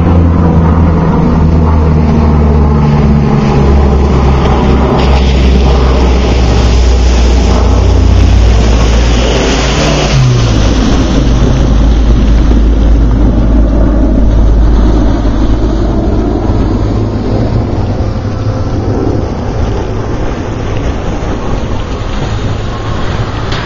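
A 1990 Geo Tracker's four-cylinder engine revving as the 4x4 drives through a muddy puddle, with a rush of splashing water around eight to ten seconds in and the engine pitch falling as it goes past. The engine is somewhat quieter after about fifteen seconds.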